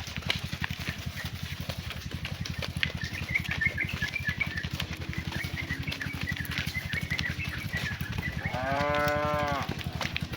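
A cow moos once near the end, a single call of about a second that rises slightly and falls back in pitch, over a steady, rapid low pulsing and faint high chirps.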